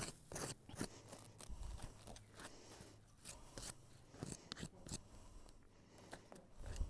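A hoof pick scraping and picking packed dirt and mud out of a draft horse's hoof sole: a run of short, irregular scratchy strokes.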